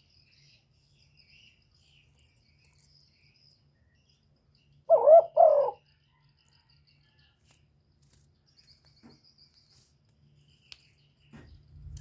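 Spotted dove cooing: one short two-part coo about five seconds in, over faint high insect chirping.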